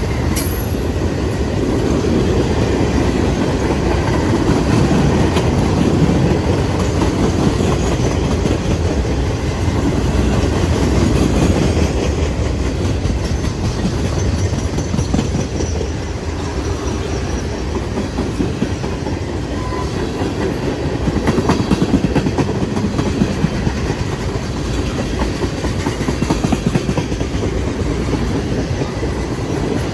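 CSX freight train's cars rolling past, steady wheel-on-rail noise with a rapid run of clicks from the wheels over the rail joints.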